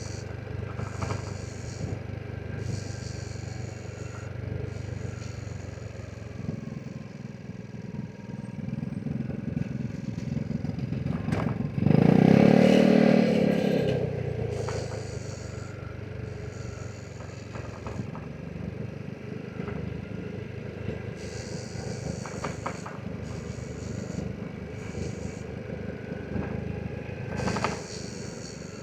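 Vespa GTS 300 scooter's single-cylinder four-stroke engine running under way. About twelve seconds in, a loud engine note rises and falls over a couple of seconds.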